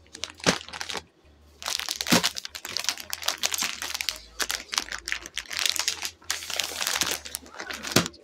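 Plastic packets of dress material crinkling and rustling as they are slid across a counter, lifted and pulled at, with a short quiet pause about a second in.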